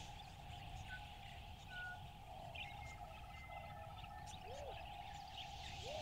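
Faint wild birds calling: scattered short chirps and whistles, a brief rapid trill near the middle, and a low arched call repeated a few times in the second half.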